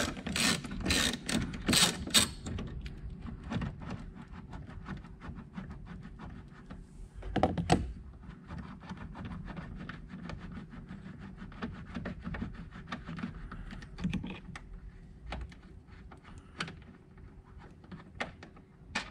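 Ratchet clicking in an even run for about two seconds as a 10 mm bolt is backed out of a plastic coolant reservoir, then stops. After that come faint scattered clicks of the bolt and tools being handled, and one dull thump about seven seconds in.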